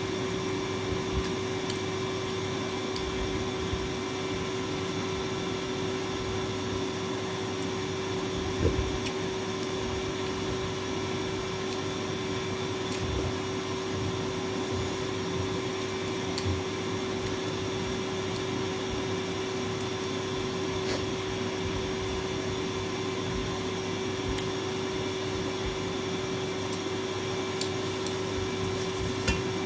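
Steady mechanical hum with one constant tone, like a motor or appliance running, with a few faint clicks of fingers against a small steel bowl.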